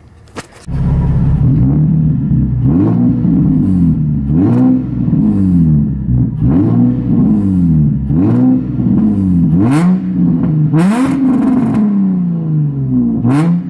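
Nissan 350Z's 3.5-litre V6 revved repeatedly through a cheap eBay aftermarket exhaust and headers, the pitch rising and falling with each blip of the throttle. The engine sound comes in loud within the first second.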